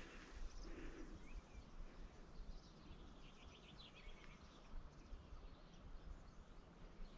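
Near silence in the open air, with faint bird chirps here and there and a short run of quick chirps around the middle.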